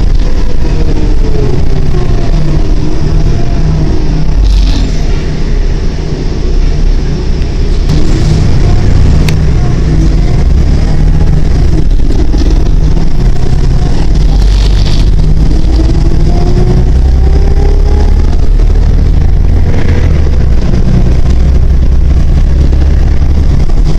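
New Flyer D40LF diesel transit bus heard from inside the cabin while driving: a loud, steady low engine rumble with a drivetrain whine that glides in pitch, climbing as the bus speeds up in the second half.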